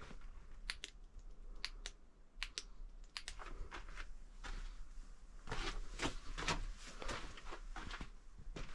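Footsteps crunching and scuffing over a gritty, rock-strewn cave floor: irregular clicks and crunches, busiest about five and a half to seven seconds in.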